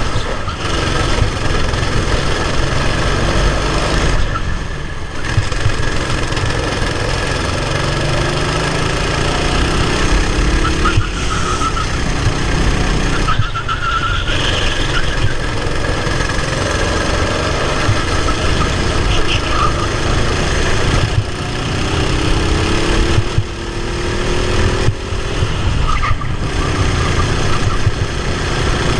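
Racing kart engine running hard, heard close-up from on board the kart, its pitch rising and falling with the revs and dipping briefly several times.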